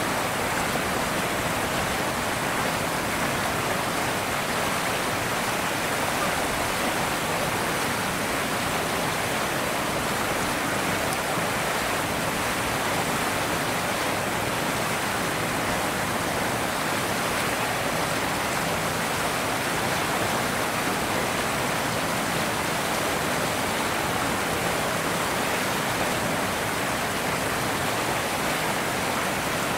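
Steady, even rushing noise like running water, with no separate sounds standing out.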